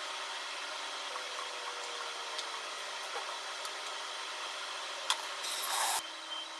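Steady fan noise, with a click and a brief rustle about five seconds in as food is handled.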